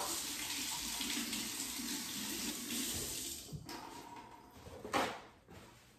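Kitchen faucet running with hands being rinsed under the stream, a steady splashing rush that breaks up and stops near the end.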